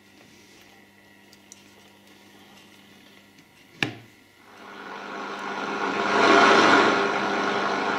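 Siemens 52W tube radio from 1930: a low steady mains hum, then a single wooden knock a little under four seconds in as the lid is shut. After that a rush of static hiss swells up loud from the loudspeaker as the front-panel knobs are turned and the set is tuned across the medium-wave band.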